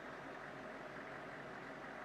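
Faint, steady running of a distant HIMARS launcher truck's diesel engine, blended with an even hiss.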